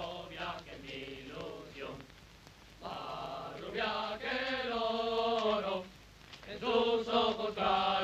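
A group of voices singing in unison, in held phrases of two to three seconds with short breaks between.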